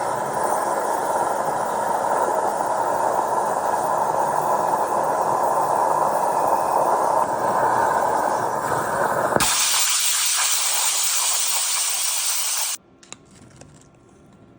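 CNC plasma cutter torch cutting with a loud, steady hiss. About nine and a half seconds in, the sound switches abruptly to a higher, thinner hiss, typical of the arc going out while air keeps flowing through the torch. That hiss stops suddenly about three seconds later, leaving a few faint clicks.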